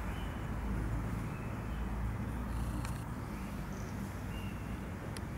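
Outdoor background: a steady low rumble with a few faint short chirps and two sharp clicks, one about halfway through and one near the end.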